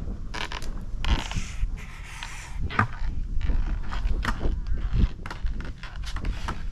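Skateboard rolling on pavement: a 9-inch cruiser deck on small soft wheels, with a steady low rumble from the wheels and a scatter of clicks and clacks from the board, including a few sharper knocks.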